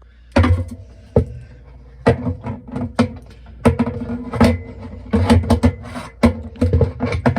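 Irregular sharp knocks and clicks, about a dozen, as parts in the bottom of a washer tub are handled and fitted back into place.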